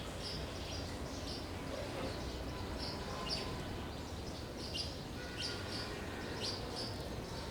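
Sparrows chirping: many short, high chirps repeating two or three times a second over steady background noise.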